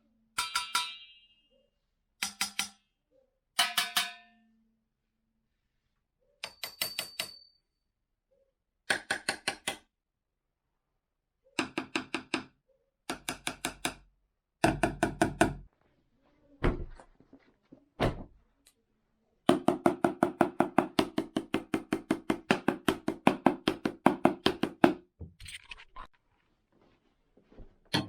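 A drumstick tapping one household object after another, in short groups of strikes separated by pauses; some objects ring with a clear pitch, others give dull knocks. About twenty seconds in comes a fast, even run of taps lasting around five seconds.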